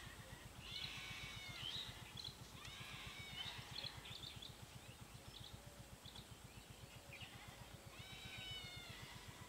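Faint, high arching animal calls in several short clusters, over a fast, steady low pulsing.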